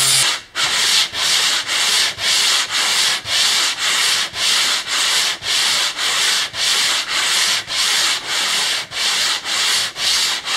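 Sandpaper rubbed by hand back and forth over a bare wooden kayak hull, in steady strokes about two a second. The motor of an electric sander stops right at the start.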